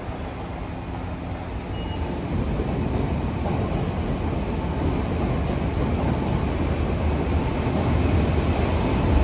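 Odakyu electric commuter train pulling into a station platform, its rumble growing steadily louder as it approaches.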